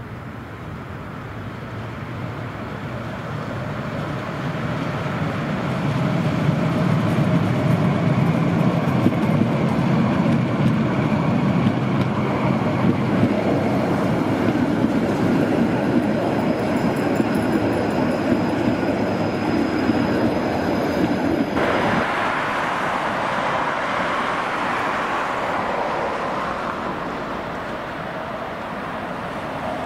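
Trams running past on their rails: a low rumble of wheels on track builds over the first few seconds as the cars approach, stays loud while they pass close by, and cuts off suddenly about two-thirds of the way through. After that comes a quieter, fading tram and traffic noise.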